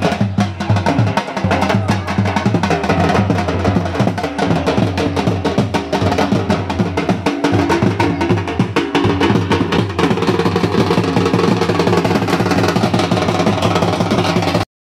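Two Punjabi dhol drums beaten fast and hard, a dense steady drumming rhythm; it cuts off suddenly just before the end.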